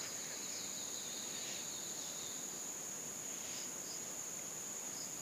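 Faint, steady high-pitched whine over quiet room tone, without change or pulses.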